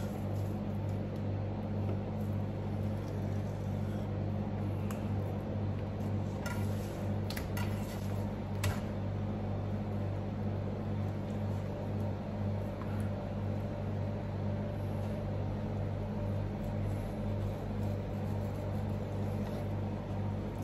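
Steady low mechanical hum, a kitchen machine such as a fan or refrigeration unit, running throughout. A few faint clicks come about seven to nine seconds in, from a knife tapping the plastic cutting board while a salmon fillet is trimmed.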